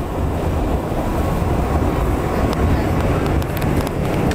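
New York City subway train (D train) running, heard from inside the car: a steady low rumble, with a few sharp clicks in the second half.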